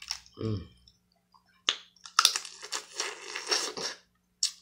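Crab shell being cracked and broken apart by hand at the table: one sharp crack, then about two seconds of crackling and crunching, and a last click near the end. A short hum of voice comes just before half a second in.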